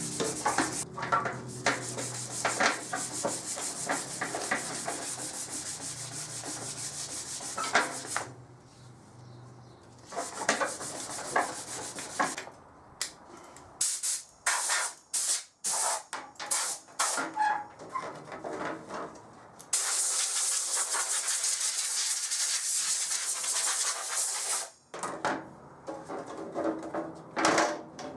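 Hand sanding of a plastic motorcycle side panel, rapid scratchy back-and-forth strokes, keying the shiny surface so glue and paint will stick. The strokes stop and start, and about two-thirds of the way through a steady hiss runs for several seconds.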